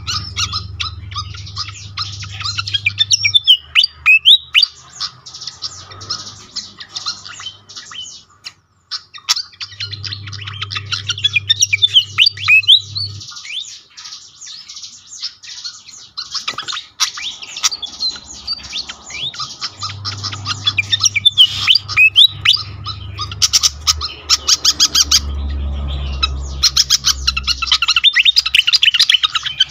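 Malaysian pied fantail calling and singing: dense runs of high chirps and quick sweeping whistled notes in several bursts, with a low hum underneath in stretches.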